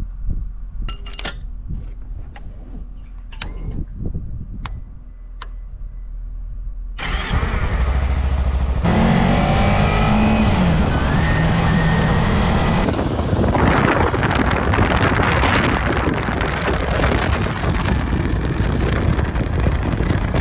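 A few sharp clicks and rustles of a motorcycle helmet being fastened. About seven seconds in, a sport motorcycle's engine takes over, its pitch rising and falling with the throttle. From about thirteen seconds in, a loud steady rush of wind and engine noise from riding at speed covers it.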